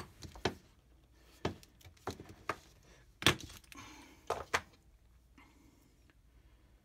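Wooden hand-screw clamps being taken off a 3D-printed plastic mold and set down on a workbench: a string of wooden knocks and clacks, the loudest about three seconds in.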